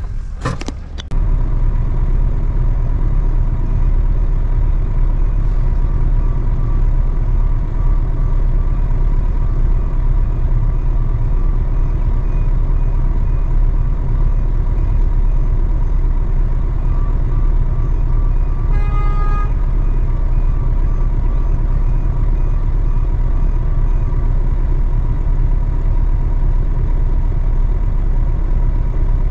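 Truck engine running steadily, with one short horn beep about two-thirds of the way through.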